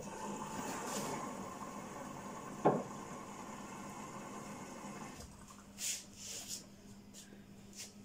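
LG Direct Drive front-loading washing machine mid-wash, its drum tumbling the laundry through water with a steady swishing over a low hum. There is one thump about two and a half seconds in, and the swishing drops away after about five seconds as the drum pauses.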